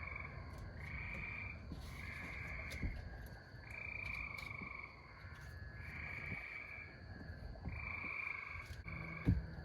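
Frogs calling: short pulsed trills from several callers at slightly different pitches, repeating about once a second, over a low rumble. One sharp knock near the end.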